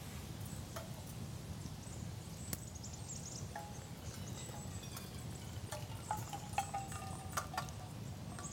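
Light metallic clinks and taps of camp cookware. A few of them ring briefly, clustered about six to eight seconds in, over a steady low rumble of wind.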